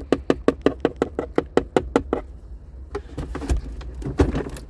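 A fast, even run of sharp clicks or taps on the car's plastic center console trim, about seven a second, for roughly two seconds. A few scattered knocks follow.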